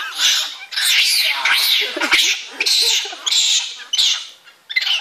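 Excited monkeys calling in a run of loud, high-pitched calls, one after another, with a brief lull about four and a half seconds in.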